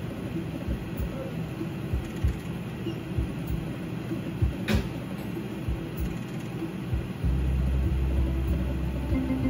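Video slot machine spinning its reels on repeated spins, with short low thuds over a rumbling background and a sharp click about halfway through. A steady low hum comes in near the end.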